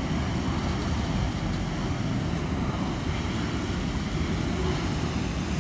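A steady rushing noise from a fierce oxygen-fed fire at a hospital oxygen station, with wind buffeting the phone's microphone. There is no explosion or other sudden sound.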